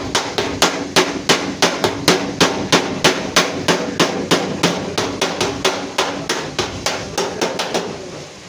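Hammer beating the damaged sheet-metal front of a Suzuki Ravi pickup in accident-repair denting work: a fast, even run of blows, about four or five a second, with the metal ringing between strikes, dying away near the end.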